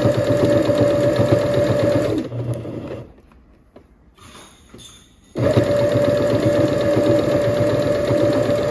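Electric sewing machine stitching a seam through two layers of fleece, running at a steady speed. It stops about two seconds in, falls quiet for about three seconds, and starts up again about five seconds in.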